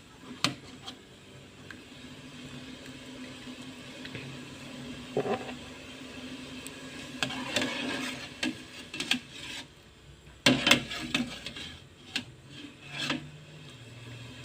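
Kitchen handling noises: scraping and rubbing with short clinks and knocks of utensils and cookware, loudest as a cluster of knocks about two-thirds of the way in, over a faint steady hum.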